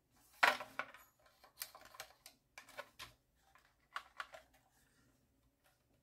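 Plastic clicks and knocks from a Maisto Tech 2.4 GHz pistol-grip RC transmitter being handled and turned over in the hands: one sharper clack about half a second in, then a handful of lighter irregular clicks over the next few seconds.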